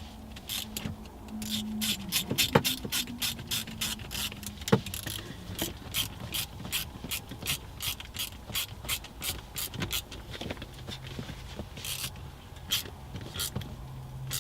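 Hand ratchet clicking as it tightens a small worm-drive clamp holding a shift knob onto its shifter. There is a quick, even run of pawl clicks, about four a second, for most of the time, then slower, scattered clicks near the end as the clamp comes tight.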